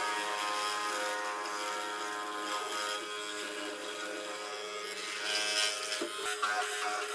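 Hollow-chisel mortiser running, its motor a steady buzz as the auger and square chisel bore a mortise in softwood, with a couple of sharp clicks about six seconds in.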